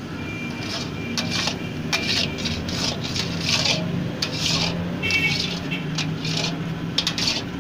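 Long metal spatula scraping and stirring a thick, crumbly khoya barfi mixture around a large steel karahi. The rasping strokes come about twice a second.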